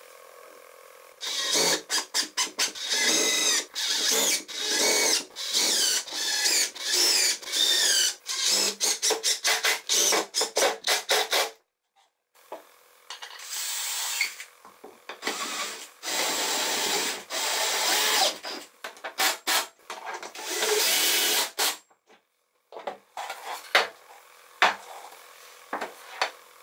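Cordless drill driving screws into the wooden table frame in many short trigger bursts, its motor whine rising and falling as each screw runs in and seats. After a pause about halfway through come longer runs, then a few sharp knocks and clicks of wood near the end.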